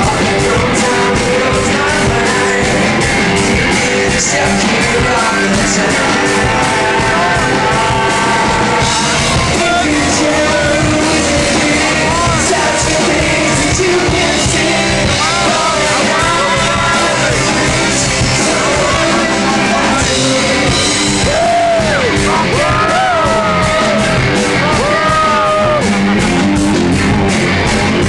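Loud rock music with singing and yelling voices over a steady drumbeat.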